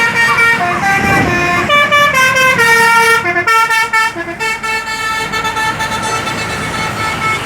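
Bus's Basuri "telolet" multi-tone horn playing a tune: a run of loud horn notes stepping up and down in pitch, several tones sounding together, ending on longer held notes.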